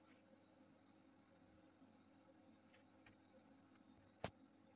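A cricket chirping in a steady high-pitched trill of about ten pulses a second, with one sharp click a little after four seconds in.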